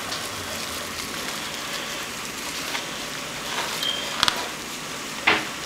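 Plastic cling wrap rustling and crinkling as hands roll a wrapped butter log on a plastic cutting board, over a steady hiss. Two sharper taps come near the end.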